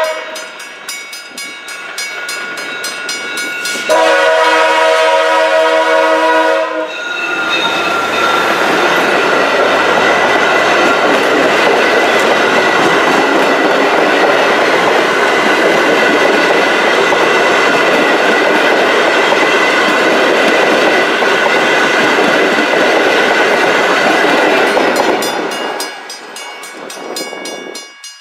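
VIA Rail passenger train passing at speed. Its locomotive horn gives a brief note at the start and a longer multi-note chord about four seconds in, then the train rushes by with loud wheel-on-rail noise for about twenty seconds before fading away near the end.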